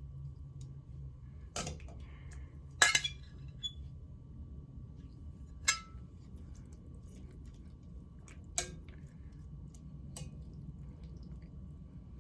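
Kitchen utensils clinking against pots and dishes: about five sharp clinks, the loudest a quick cluster about three seconds in, one with a short ring near the middle. A steady low hum runs underneath.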